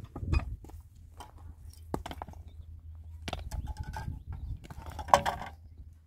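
A pickaxe strikes hard stony ground about a third of a second in, followed by a few lighter knocks of rocks being handled. Near the end comes a loud short sound with some pitch in it.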